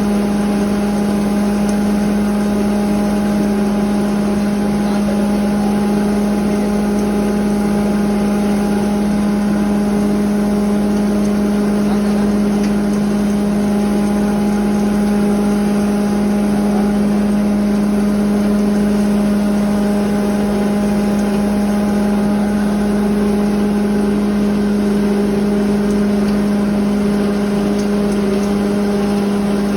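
7.5 HP cattle feed grinder running steadily, a loud constant machine hum with a strong low tone and its overtones.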